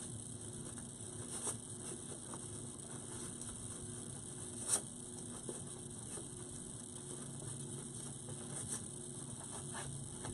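Faint rustling of ribbon being handled as a small bow is tied and shaped, with a few light clicks and a steady low hum underneath.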